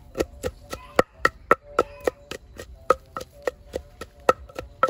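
Knife chopping on a wooden cutting board: steady, even strokes about four or five a second, each with a short ring.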